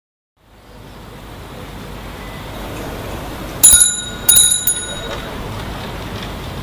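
Bicycle bell rung in three quick strokes about three and a half seconds in, the first two loudest and each ringing out briefly. Under it, a steady hiss of riding and street noise that fades in at the start.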